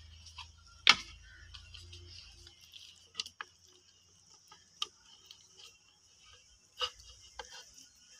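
Scattered clicks and light knocks of pieces of diced raw chicken being dropped by hand into an empty plastic blender jar and the plate handled against it, with one sharper plastic click about a second in.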